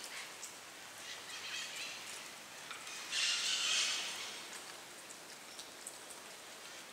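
A spoon scraping food across a ceramic plate, one louder scrape lasting about a second, about three seconds in. Under it there is a steady faint patter with small clicks.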